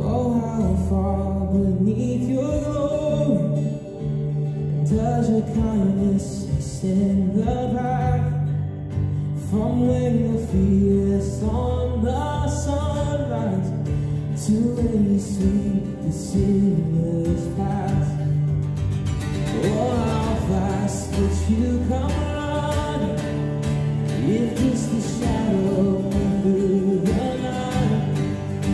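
A man singing a slow worship song live, accompanying himself on an acoustic guitar, with steady low notes underneath the voice.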